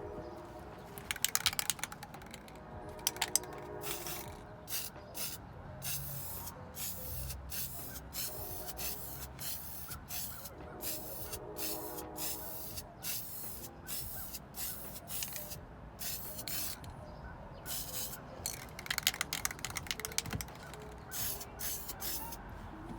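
Spray paint sprayed in short repeated hissing bursts, about one or two a second, over light background music.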